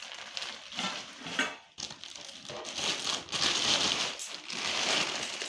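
Plastic gift wrapping crinkling and rustling as a wrapped present is handled, louder in the second half.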